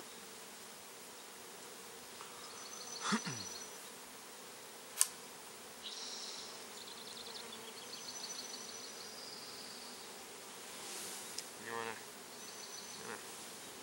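Italian honeybees buzzing around an opened bee package, with single bees flying close past and their buzz swooping down in pitch as they go by, a little after the start and again near the end. A single sharp click about five seconds in.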